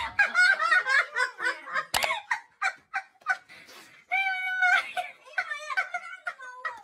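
A person laughing in high-pitched, quick broken peals, with one longer held squeal a little after four seconds in.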